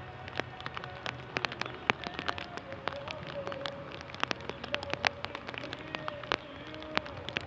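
Rain falling, with irregular sharp raindrop ticks close to the microphone over an even patter and a faint held tone underneath.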